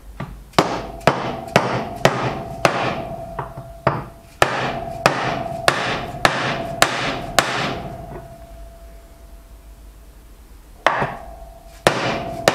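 Soft-faced plastic hammer driving a new universal joint into its yoke: a run of sharp blows about two a second, the metal ringing with a steady tone after them, then a pause of about three seconds and a few more blows near the end.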